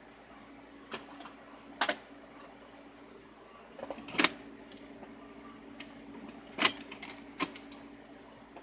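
Handling noise on a phone's microphone: a few sharp knocks and rubs as the phone is picked up and moved, over a faint steady hum.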